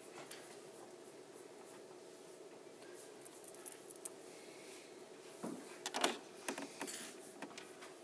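Faint steady room hum, with a few light clicks and rustles of hands handling the drawing paper and pencil, mostly a little past the middle.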